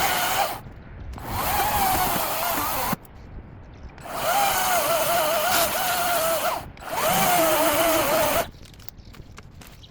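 Ego battery-powered electric chainsaw running in four bursts of one to three seconds, its high motor whine wavering in pitch as the chain cuts through branches. It stops about eight and a half seconds in, leaving faint clicks.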